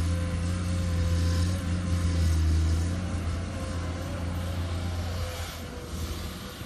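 Komatsu PC210 hydraulic excavator's diesel engine working under load as it dumps a bucket of sand into a dump truck and swings back, with a steady whine over the low engine drone. The engine is loudest for the first three seconds, then eases off.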